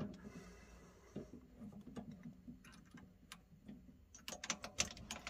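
Faint metal clicks and ticks from a chuck key working the jaws of a mini lathe chuck, the lathe switched off; a sharper click at the start and a quick run of clicks near the end.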